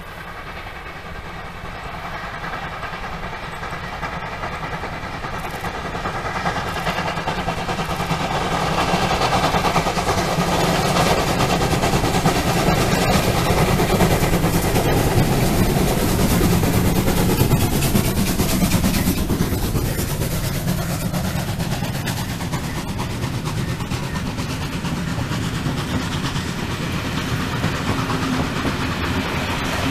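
A double-headed steam train, two German class 50 and class 52 2-10-0 locomotives under steam, approaching, growing steadily louder, and passing close by about halfway through. It is followed by the coaches rolling past with a steady clickety-clack of wheels on rail joints.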